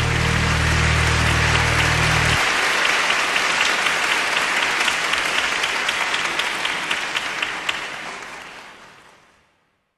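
Audience applauding, a dense patter of clapping that fades away to silence near the end. Low music underneath stops about two seconds in.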